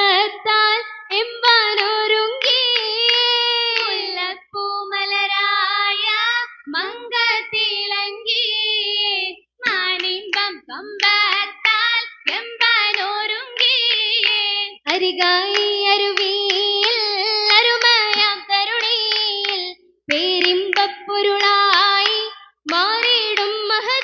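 A group of girls singing an Oppana song (Malayalam Mappila song) in unison, phrase after phrase with short pauses, accompanied by hand clapping.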